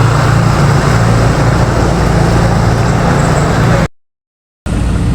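Steady, loud engine noise with a low hum, cutting out completely for under a second near the end.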